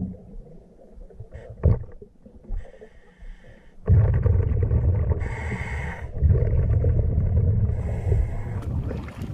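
Scuba diver's breathing heard underwater: from about four seconds in, a loud low rumble of exhaled regulator bubbles, with two short hisses about three seconds apart.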